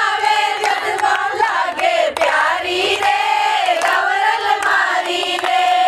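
A group of women singing a Rajasthani Gangaur folk song together, with hand claps.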